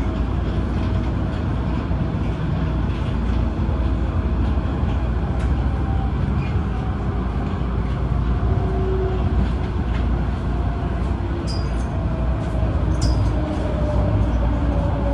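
MTR Tung Chung Line Adtranz-CAF electric multiple unit running, heard on board: a steady rumble of wheels on rail with a faint wavering hum, and two short high squeaks near the end.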